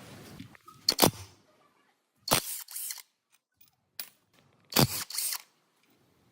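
A few short bursts of knocking and scraping from hand tools and parts being handled: four separate bursts with near silence between them.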